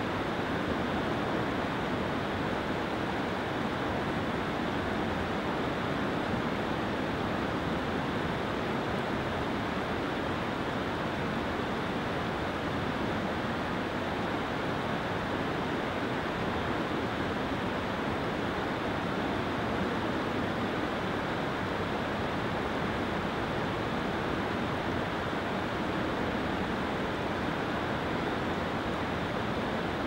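Steady roar of rushing water, an even noise that does not change.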